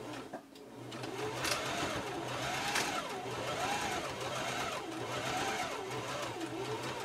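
Electric sewing machine stitching through the layers of a scrap quilt, starting up just after the beginning; its motor hum rises and falls in pitch in slow waves as the speed changes.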